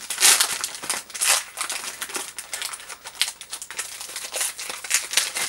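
Foil Pokémon card booster pack crinkling as it is handled and pulled open, a dense run of short, sharp crackles, loudest in the first second or so.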